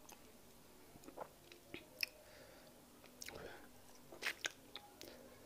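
Close-miked chewing and wet mouth sounds of someone eating fufu and peanut soup by hand. Soft smacks and clicks come in small clusters, the loudest about three seconds in and again just past four.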